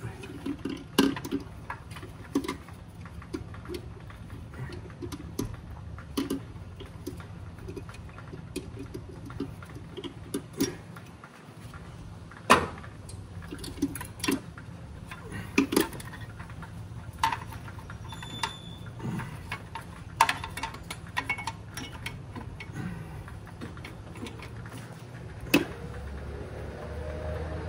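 Irregular sharp clinks and knocks of metal hand tools working on an engine, over a steady low hum.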